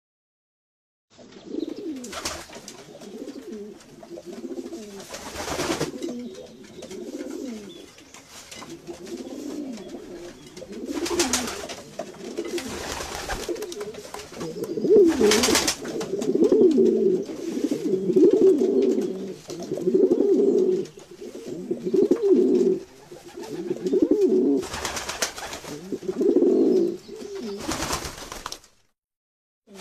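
Domestic pigeons cooing in a run of repeated low phrases, louder and more continuous in the second half, with a few brief rustling bursts such as wing flaps.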